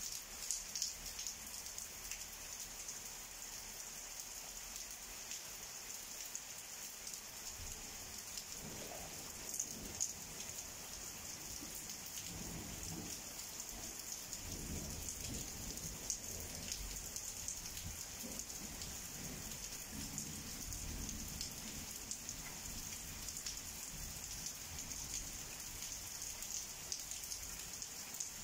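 Heavy rain falling steadily, with sharp drops tapping close by. About a third of the way in, a long low roll of thunder builds and rumbles on for over ten seconds before fading.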